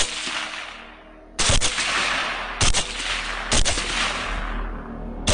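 Rifle shots fired at hogs, five sharp cracks spaced about a second or so apart, one right at the start and one at the very end, each followed by a long rolling echo that fades away.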